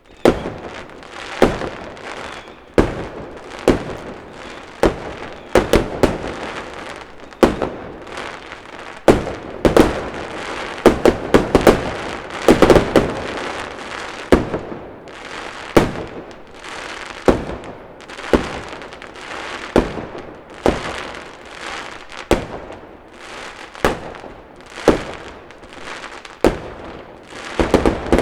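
Fireworks display: aerial shells bursting one after another, sharp bangs about once a second, each trailed by crackling. The bursts come thickest in a cluster around the middle.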